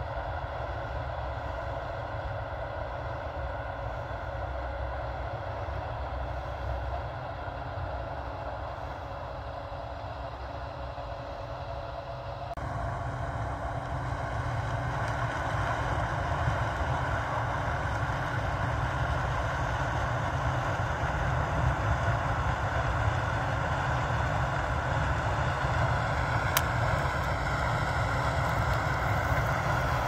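Combine harvesting corn at a distance: a steady machine drone of engine and threshing, louder and fuller from about halfway through. A single sharp tick near the end.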